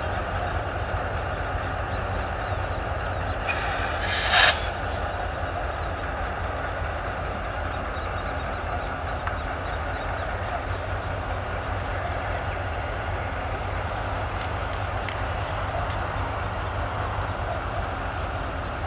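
Steady rumble of heavy railway equipment working, with one brief, loud, sharp sound about four seconds in.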